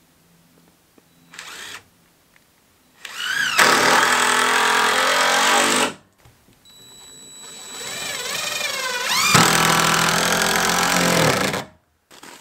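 Circular saw cutting plywood in two runs, its motor pitch rising and dipping as the blade works through the sheet; the first run lasts about three seconds and the second builds up slowly before stopping abruptly near the end.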